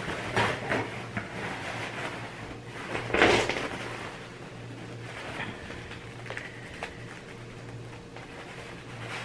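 Paper towel rustling and being handled, with a few light knocks and clicks and one louder noisy rustle about three seconds in.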